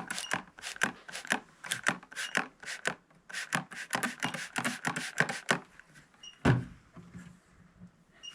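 A microfiber cloth wiping the edges of a Sony Bravia TV's frame in quick strokes, several a second, each a short scratchy rub, for about five and a half seconds. A single knock follows about a second later.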